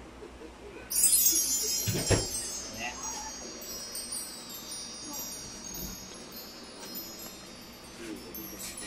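Chimes ringing: many high metallic tones start suddenly about a second in and fade slowly, with a single thump about two seconds in.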